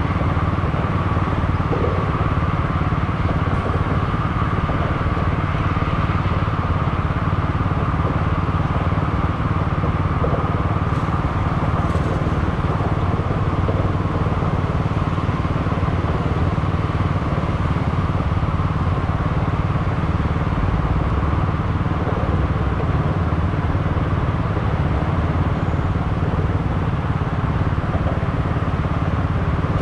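A vehicle's engine idling steadily close by, a low pulsing rumble that holds even throughout.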